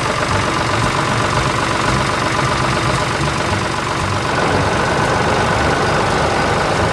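Excavator engine running steadily. A higher steady tone joins in about four seconds in.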